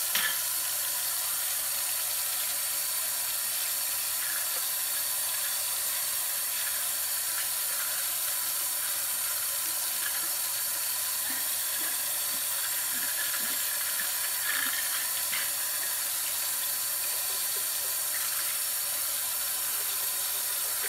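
Kitchen tap running steadily into a sink while glass mason jars are washed with a bottle brush, with a few light knocks and scrubbing sounds from the jars, most noticeable about fourteen to fifteen seconds in.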